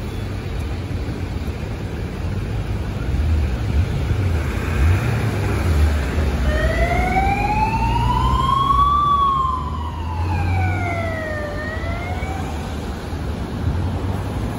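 Low rumble of city traffic, joined about six seconds in by an emergency siren wailing: one slow rise and fall in pitch, beginning to rise again near the end.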